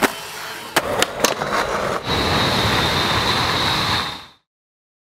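Skateboard clacking and knocking on concrete, a few sharp hits in the first second or so. It is followed by a passing train, a steady rush with a thin high ringing tone, which cuts off suddenly a little after four seconds in.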